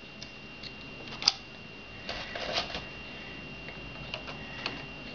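Hornady 366 Auto shotshell reloading press being worked: scattered light clicks and rattles, with one sharp click about a second in and a short burst of rattling a little past two seconds.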